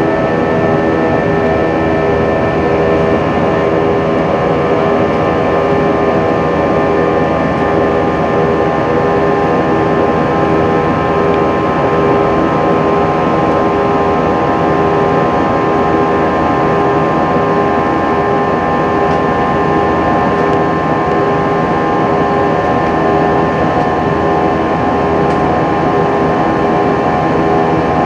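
Jet airliner cabin noise in the climb after takeoff: the steady rush of engines and airflow, with several steady whining engine tones over it.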